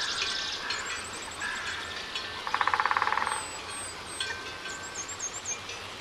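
Several small birds singing: a fast rattling trill lasting under a second about halfway through, with high thin chirps and whistling notes around it.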